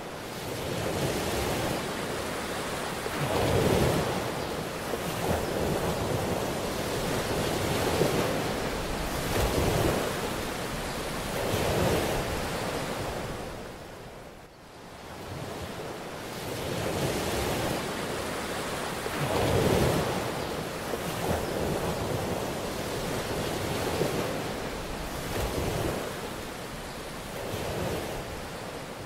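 Ocean surf: a steady wash of noise that swells as waves break and falls back, every few seconds. It dips briefly about halfway through, then the swells start over.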